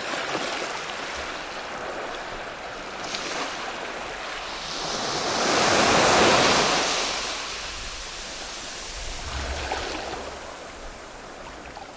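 Ocean surf: a steady wash of waves that swells to a peak about halfway through, then recedes.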